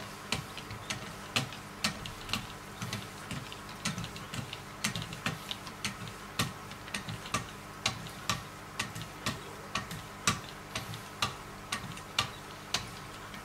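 Wicked Edge guided sharpener's paddles stroking the clamped blade of a Hogue EX-03 knife, alternating sides, with a sharp click at each stroke at an uneven two to three a second.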